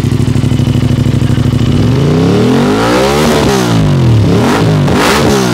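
Aprilia RS 457's parallel-twin engine, fitted with an aftermarket R9 Long exhaust muffler, idling steadily and then revved twice, each rev rising and falling back to idle.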